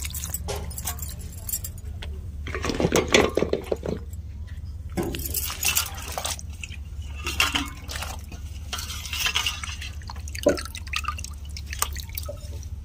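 Hands washing flat sem beans in a steel bowl of water: irregular splashing and water dripping from lifted handfuls, with water poured off over the bowl's rim around the middle.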